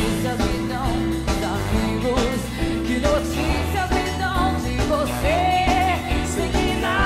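Live band music with a trombone playing over bass guitar, and a woman's lead vocal coming in about three seconds in.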